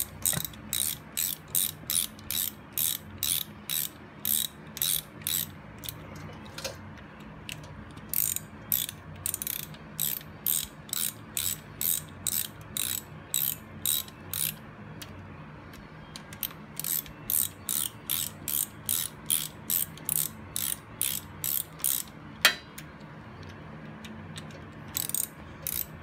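Small hand ratchet clicking in steady runs of about three clicks a second as the transmission side-cover bolts are run in and snugged up, with short pauses between bolts.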